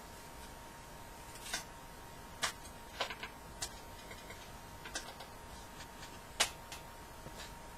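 About six short, sharp clicks and taps at uneven intervals in a quiet room, the loudest late on, over a faint steady high-pitched tone.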